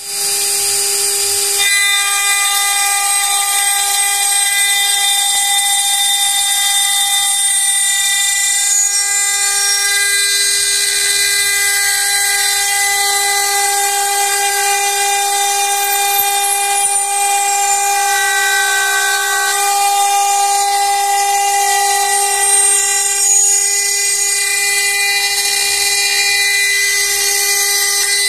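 CNC glass milling machine's spindle driving a water-cooled diamond cutter through a glass sheet: a steady, loud whine of several fixed tones over a grinding hiss, with more tones joining in about two seconds in.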